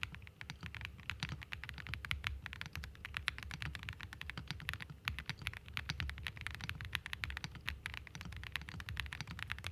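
Fast, continuous typing on a Meletrix Zoom98 custom mechanical keyboard fitted with Diamond Avalon switches and Cloud MOA keycaps, many keystrokes a second.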